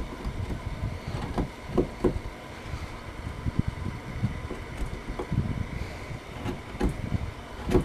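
Sharp hand chisel taking small paring cuts in wood, a few short scrapes and knocks over a low rumble of handling noise.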